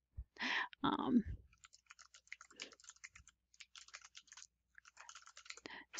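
Computer keyboard typing: a run of quick, light keystrokes lasting about four seconds.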